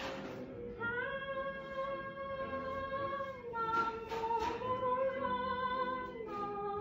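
Recording of a woman singing a slow, plaintive song, holding long notes that step to a new pitch every two to three seconds.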